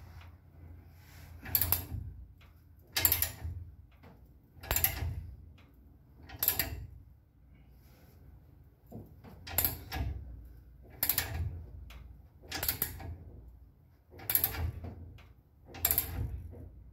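Ratchet wrench clicking in repeated strokes, about ten in all roughly every one and a half seconds with a short pause midway, as it turns a spring spreader to spread the leaf spring wide enough to fit a new shackle.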